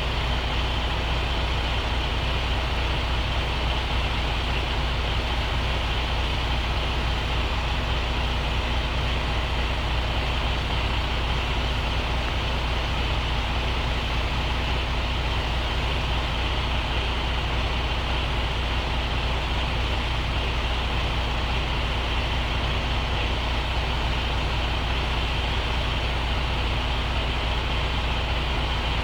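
Truck's diesel engine idling, a steady low drone with an even hum that does not change.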